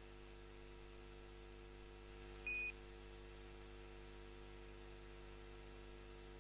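A single short, high electronic beep about two and a half seconds in, as the satellite deployment countdown reaches zero, over a steady electrical hum on the broadcast audio feed.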